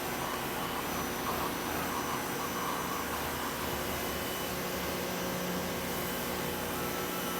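Bosch Aquatak 130 electric pressure washer running steadily with the trigger held: a motor-and-pump hum with a few fixed tones over the hiss of the water jet, unchanging throughout.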